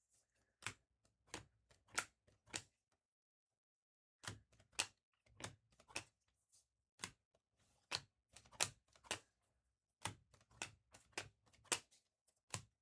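Trading cards snapping as they are flicked one by one through a stack in the hand: a run of sharp clicks, about two to three a second, with a pause of a second or so after about three seconds.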